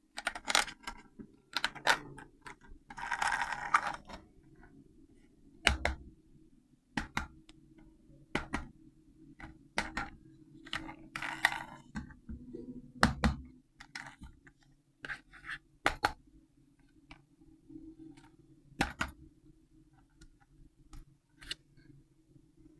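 Handling of a plastic RC toy tank and its packaging: scattered sharp clicks and knocks, with two brief rustles about three seconds in and again near the middle, over a faint steady hum.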